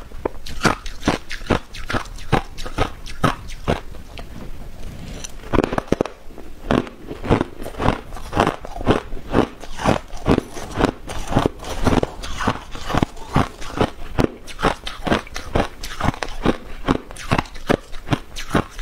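Crushed ice being crunched and chewed between the teeth, in rapid sharp crunches about three to four a second, with a softer lull about four to six seconds in.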